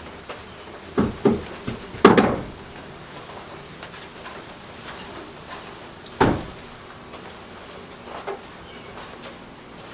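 Wooden bee package box being knocked and jolted against the hive to shake the bees out: a few sharp thumps, two close together about a second in, the loudest just after two seconds, another about six seconds in and a lighter one near eight seconds.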